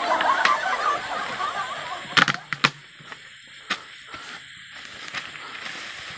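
Young men snickering and laughing for about two seconds, then a few sharp clicks, the loudest pair about two seconds in, over quiet outdoor background.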